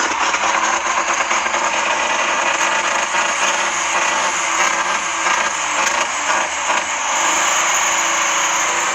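Truck engine running just after an ether-assisted start, its sound fairly steady and holding even for the last couple of seconds. It is running rough, with a misfire suspected.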